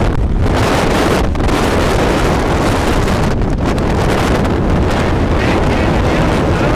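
Strong wind of about 50 to 60 miles an hour buffeting the camera's microphone: a loud, steady rumble with brief slight lulls.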